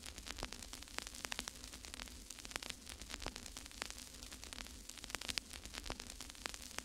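Faint crackling static: dense, irregular clicks and pops over a steady low hum.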